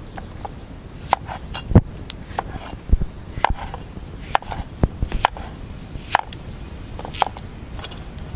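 Knife chopping down onto a board, a string of irregular sharp knocks about half a second to a second apart.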